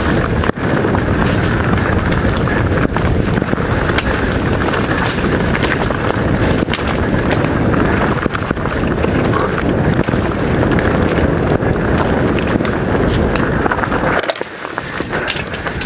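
Mountain bike descending a rocky dirt singletrack at speed: wind rushing over the microphone, tyres rolling over rock and dirt, and the bike rattling over the bumps. The noise drops briefly near the end.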